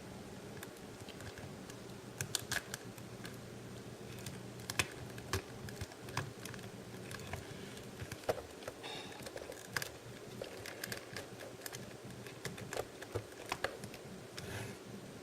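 Irregular small clicks and taps of hard plastic, over a faint steady hum: smoke-effect accessory parts being handled and snapped onto a plastic action figure.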